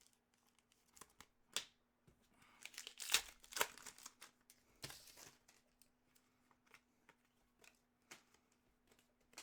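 Crinkling and tearing of a trading-card pack wrapper, loudest from about two and a half to five seconds in, with scattered light clicks of cards being handled.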